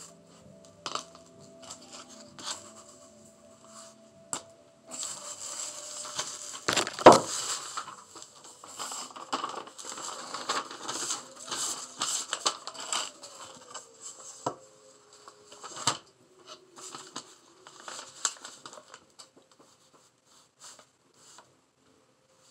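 A sheet of paper being handled and slid across a sand painting, rustling and crinkling with many sharp taps, the loudest about seven seconds in. It starts about five seconds in and dies away in the last few seconds.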